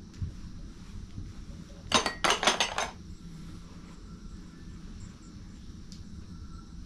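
A quick run of clinks and knocks of dishes and pots being handled, about two seconds in and lasting under a second, over a low steady room hum.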